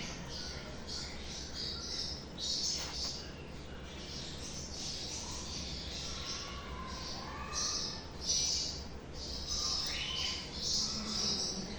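Turquoise parrots (Neophema pulchella, turquoisines) chirping and squawking: a continual run of short, high calls with a few quick rising notes.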